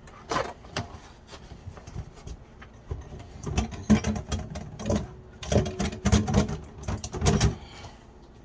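Kitchen handling noises: a run of irregular knocks and clatters, thickest from about three seconds in until shortly before the end.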